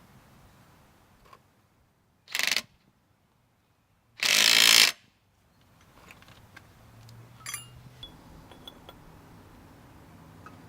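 Two short, loud mechanical bursts from tool or metal work on a car's rear suspension, about two seconds apart, the second longer.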